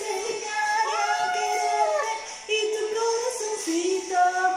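Female voices singing a Spanish-language pop song over its backing music, with a long held note about a second in.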